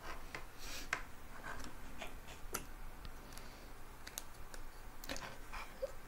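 Faint, irregular small clicks and taps as digital multimeter test probes and their leads are handled and set against a circuit board.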